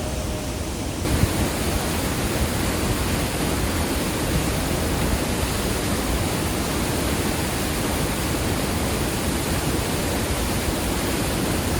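Small waterfall pouring steadily close by, a continuous rush of falling and splashing water that cuts in abruptly about a second in.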